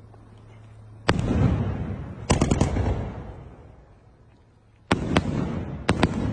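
A 4-inch, 16-shot fireworks cake firing: a sharp bang about a second in, a quick run of three or four bangs a second later, then two pairs of bangs near the end. Each is followed by a rumbling echo that dies away.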